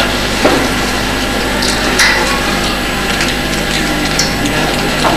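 Steady hum and hiss of the recording, with a few light knocks and rustles as leafy sprigs and small objects are handled on a wooden table.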